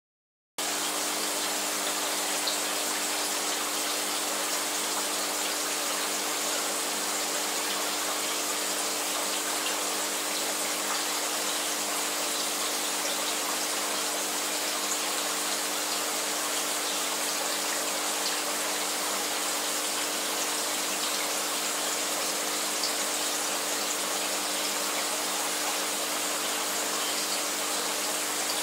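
Aquarium filtration running: a steady hiss of moving water over the low, even hum of the pump, starting about half a second in.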